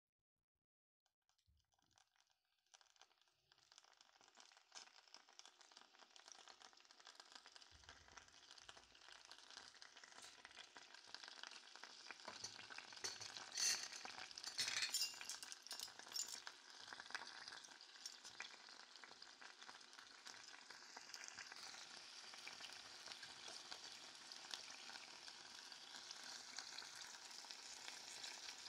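Faint sizzling and crackling from a stainless steel saucepan of apple slices heating on an electric stove. It builds gradually from near silence, with a cluster of sharper crackles about halfway.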